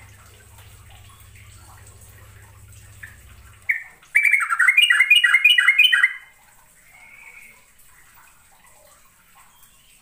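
Yellow-vented bulbul singing: one short note about three and a half seconds in, then a loud two-second run of quick, repeated bubbling notes, with fainter calls before and after.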